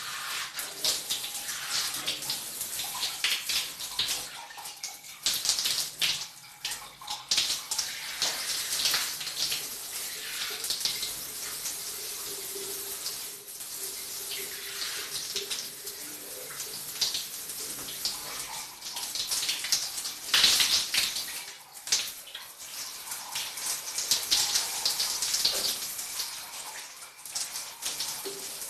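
Shower water falling and splashing in a small bathroom, its spray broken up unevenly with frequent brief surges and dips as it hits a body.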